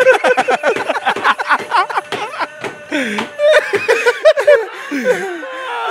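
Two men laughing hard: a fast run of short, pulsing laughs over the first two seconds, then looser, higher laughs that slide up and down in pitch.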